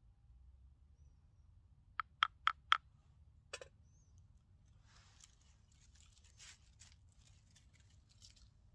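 A wooden spoon tapped four times in quick succession on the rim of a wooden bowl to knock it clean, then one knock as the spoon is laid on a metal pot. Faint rustling of dry leaves follows.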